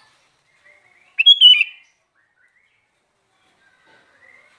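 Sooty-headed bulbul (kutilang) singing: one loud, short, bubbling phrase about a second in, with faint soft twittering before and after it.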